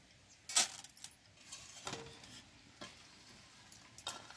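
A few sharp clinks and rattles of crushed crab-claw shells and a hand against an aluminium pot and a steel plate, as the shells are squeezed out of their washing water. The loudest clink comes about half a second in, with three fainter ones after it.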